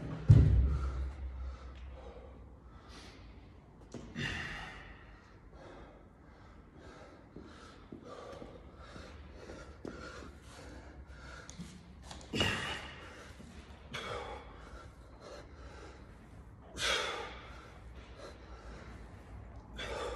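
A heavy thud just after the start, then a man breathing hard after exertion, with loud gasping breaths every few seconds.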